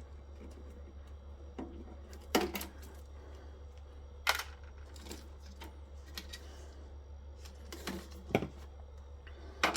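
Scattered sharp clicks and knocks of tools and metal parts being handled while a large solar inverter is dismantled, about five of them at uneven intervals, over a low steady hum.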